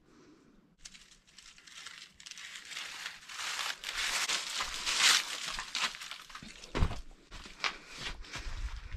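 Footsteps crunching and rustling through dry fallen leaves over rocky ground. The rustling builds over the first few seconds, and a few heavier thudding steps come near the end.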